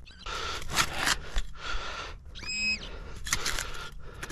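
A spade digging into field soil: a series of gritty scraping crunches about every half second, with one short high squeal near the middle.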